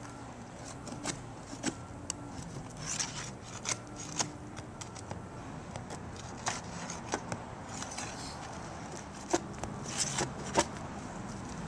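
A metal prying tool working under an asphalt shingle to pull up roofing nails: scattered scrapes and sharp metallic clicks, the loudest few near the end.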